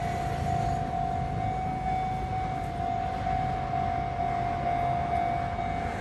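Japanese railway level-crossing warning bell ringing steadily at one pitch on the Enoden line, over a low rumble.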